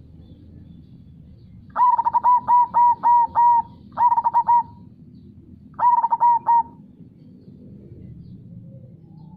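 Zebra dove (perkutut) cooing: three phrases of quick, repeated rolling coo notes, the first a run of about seven notes, then two shorter phrases about two seconds apart.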